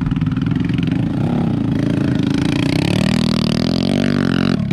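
Dirt bike engines running, with the pitch rising and falling as a rider revs over a dirt jump.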